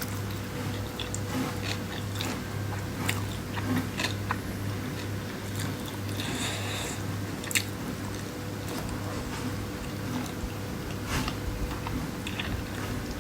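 A person chewing and biting food close to the microphone, with irregular mouth clicks and smacks and a slightly longer crunchy or wet sound about six to seven seconds in. A steady low hum runs underneath.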